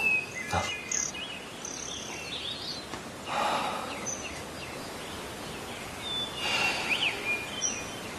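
Scattered short bird chirps over a steady background hiss, with a dull thump shortly after the start.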